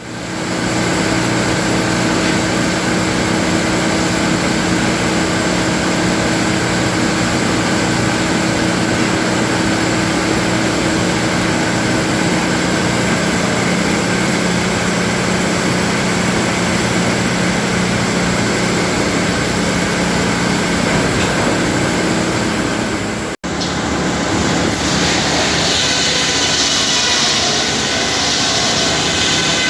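Sawmill machinery running steadily and loudly, with a steady hum under the noise. About 23 seconds in the sound breaks off for an instant and resumes brighter and hissier.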